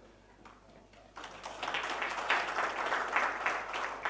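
Audience applause: many hands clapping, starting suddenly about a second in after a short quiet.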